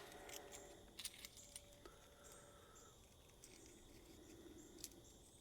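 Near silence with a few faint clicks and light metallic taps from small parts being handled.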